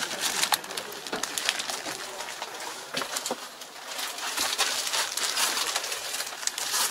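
Rustling and scattered sharp clicks and crackles: handling noise as someone climbs into a tractor cab past its plastic-wrapped seat.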